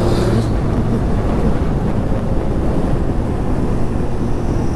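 Suzuki GSX Bandit motorcycle riding at steady speed: wind rushes over the camera microphone, with the engine running evenly underneath.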